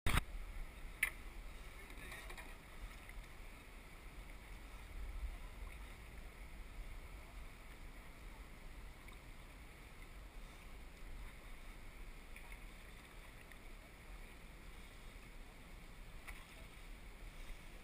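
Faint sounds of a kayak being paddled on calm water: soft paddle strokes and water moving along the hull, over a low steady rumble, with a single sharp knock about a second in.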